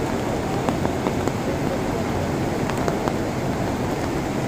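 Swollen mountain river in flood after heavy rain: a steady, loud rushing of muddy water churning through rapids, with a few faint scattered ticks.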